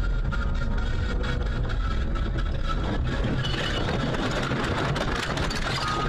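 A car's engine running with steady road and cabin noise.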